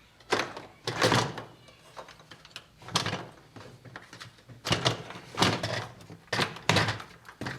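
Hard plastic knocks and clunks from a dishwasher's white wash-arm tube as it is twisted aside and popped out of its mount in the tub. About a dozen irregular knocks come in small clusters.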